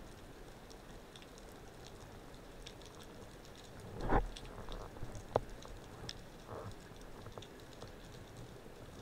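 Underwater ambience along a rocky reef, heard through a camera housing: a faint, steady crackle of scattered clicks. About four seconds in there is a brief low rush of water, and a second later one sharp click.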